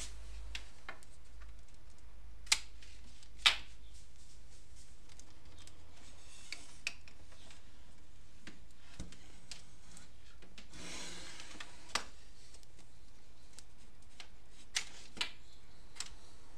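Handling noise from a laptop and the recording device being moved: scattered sharp clicks and knocks, the two loudest around three seconds in and a pair near the end, with a brief rubbing sound near the middle, over a steady background hiss.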